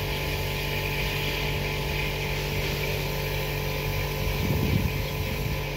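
Gravity-feed paint spray gun hissing as it sprays, over an engine running steadily. A brief low rumble swells about four and a half seconds in.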